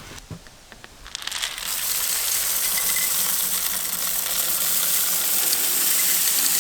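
Homemade grain grinder, a 1.5 hp Leeson electric motor spinning a fly cutter on a dado blade set, grinding corn: a dense rattling, hissing grind that builds about a second in, runs steadily, and cuts off near the end.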